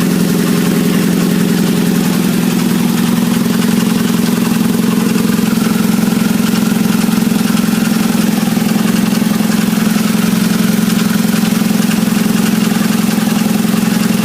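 1997 Nissan Altima's 2.4-litre four-cylinder engine idling steadily with a rattle, the fault the owner is trying to trace along with low power; a timing chain has been suggested as the cause.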